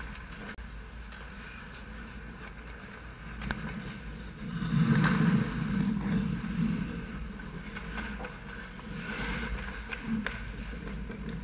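Ice skate blades scraping and carving on rink ice close to the goal, louder about five seconds in as players skate in around the net, with a few sharp clacks.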